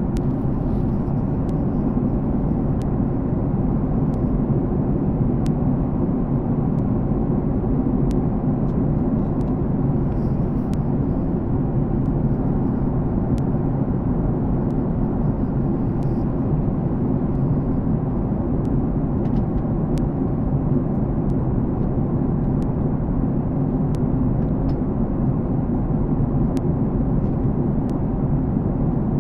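Steady low drone of an airliner cabin in flight, engine and airflow noise heard from inside the cabin, with a few faint scattered clicks.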